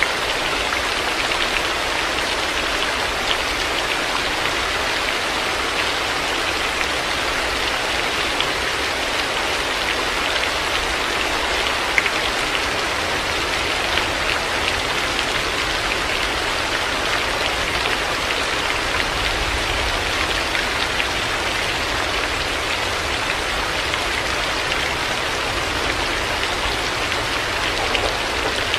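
Steady heavy rain, a dense even hiss with scattered individual drops ticking on surfaces, one louder drop tick about twelve seconds in.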